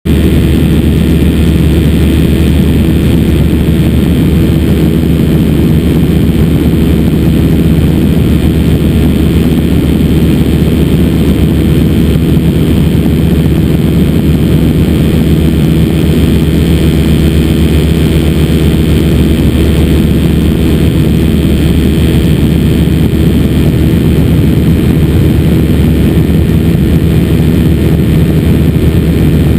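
Small two-stroke engine and propeller of a powered paraglider running steadily at constant throttle in flight, loud and unbroken.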